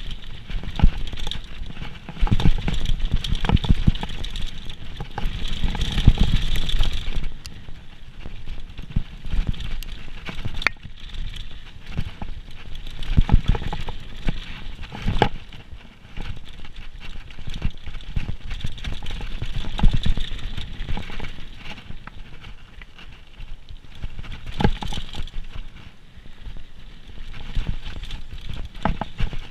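Downhill mountain bike riding fast over a rough trail: the bike rattles and clatters with many irregular sharp knocks from the tyres and suspension hitting bumps, over steady rushing noise. The knocking is heaviest in a stretch early on and in a few hard hits later.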